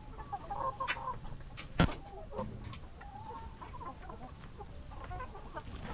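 A flock of laying hens clucking, with many short calls overlapping and a single sharp knock about two seconds in. Wind rumbles on the microphone.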